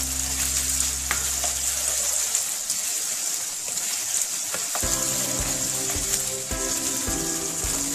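Boneless chicken pieces sizzling in oil in a frying pan, a steady hiss as they are stirred with a spatula. Background music underneath fades out about two seconds in and comes back with a steady beat near five seconds.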